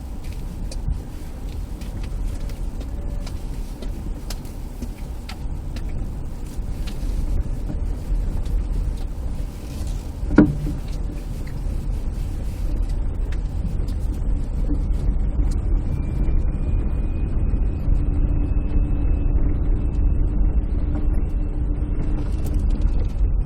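Mitsubishi Lancer IX being driven, with steady low road and engine rumble and repeated short knocks from the front suspension, including one loud knock about ten seconds in: the suspension knock that is the car's fault. A faint steady whine joins in the later part.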